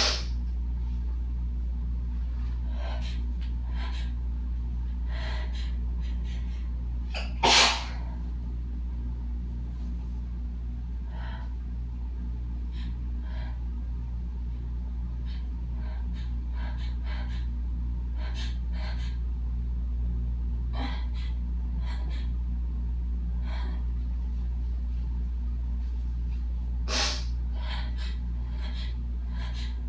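A woman sneezing harshly, set off by dust from housecleaning: a sneeze right at the start, the loudest one about eight seconds in, and another near the end, with short gasping breaths and sniffs between them. A steady low hum runs underneath.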